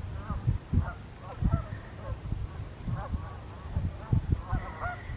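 A flock of waterfowl, Canada geese and swans, calling together: many short honks overlapping throughout. Low thumps come and go underneath.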